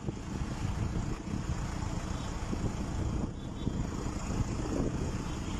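Steady noise of cars driving through a flooded street, heard through a phone's microphone.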